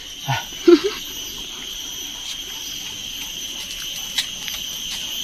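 Mouth and eating sounds of people snacking on fresh water apples and mango: a brief murmured hum about half a second in and a few small clicks, over a steady high-pitched whine.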